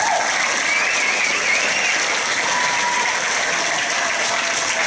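Crowd applause: many people clapping, steady and loud throughout.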